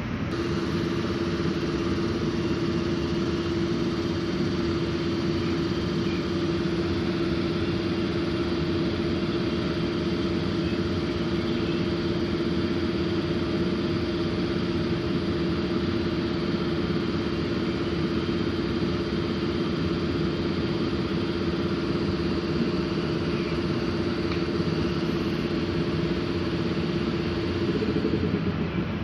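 Electric locomotive standing at the head of a passenger train, giving a steady, even hum on one constant pitch over a low rumble. The hum stops about a second before the end.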